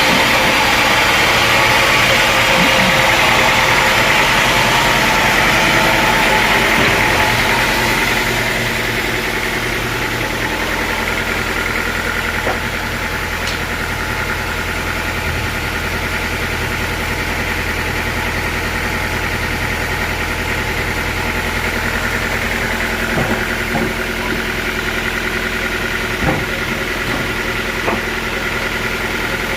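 Sawmill engine running steadily, louder for about the first eight seconds and then settling to an even run, with a few short knocks in the second half.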